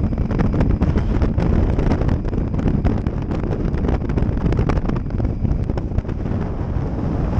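Wind buffeting the microphone of a camera on a moving motorcycle, a loud steady rush full of irregular gusts, with the Triumph Tiger 800 XCx's three-cylinder engine running under it at road speed.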